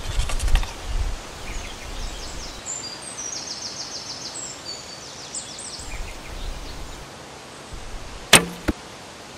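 A bowstring released: one sharp, loud snap with a short low twang near the end, followed about a third of a second later by a smaller click of the arrow arriving. Before it, high chirping trills come and go.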